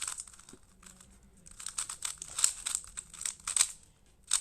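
GAN 356i Carry smart 3x3 speedcube being turned fast during a timed solve: rapid, irregular clicking and clacking of the layers. It slackens about a second in and pauses briefly near the end.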